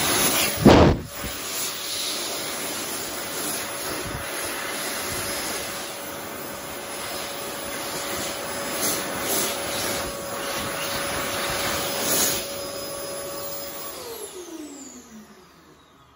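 Warner Howard World Dryer Airforce high-speed hand dryer blowing cold air, a steady rush of air with a steady whine, with a loud thump about a second in. Near the end the motor cuts out and winds down, its whine falling in pitch as the airflow fades away.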